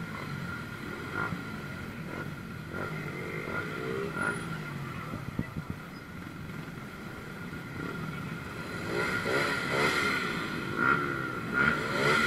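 Many motorbike and scooter engines running in a dense crowd of bikes, with repeated revs rising and falling in pitch. The revving comes thicker and louder in the last few seconds.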